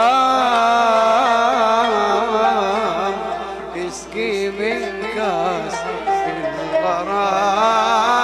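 A man singing a long, wavering melismatic line of an Arabic mawwal, accompanied by an oud, with a brief break in the voice about halfway through.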